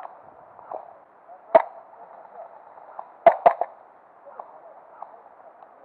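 Airsoft gun shots: one sharp shot about one and a half seconds in, then three quick shots in a row about two seconds later.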